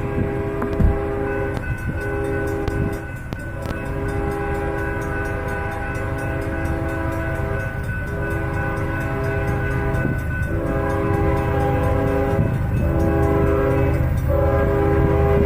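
Locomotive air horn sounding a run of long blasts, several notes at once, with short breaks between them, over a steady low rumble from the train.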